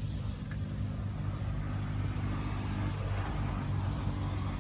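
An engine running steadily, a low, even hum that swells a little in the middle.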